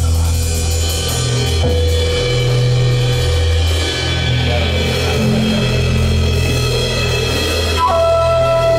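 Progressive rock band playing live: drum kit with cymbals over a low bass line and sustained keyboard tones. Near the end a flute comes in with a held note.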